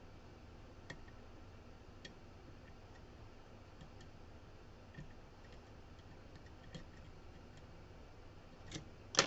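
Lock pick working the pins of a CX5 lock, faint light clicks every second or so, with a sharper metallic rattle near the end.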